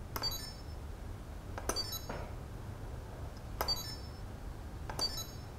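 Piezo buzzer on an Arduino/ESP board playing its short predefined connection and disconnection sound effects as the push button is pressed and released. There are four quick runs of high electronic beeps, each lasting well under a second and each with a click at its start.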